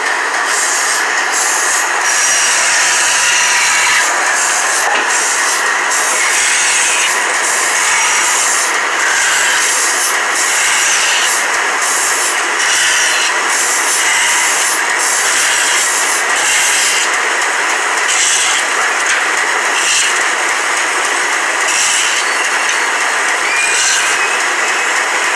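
Large band saw running steadily, its blade cutting through a thick wooden block.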